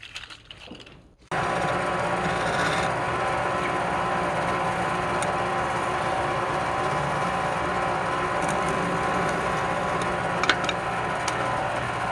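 Wood lathe running steadily with a wood-cutting hiss over its motor hum. It comes in abruptly about a second in, and a few sharp ticks sound near the end.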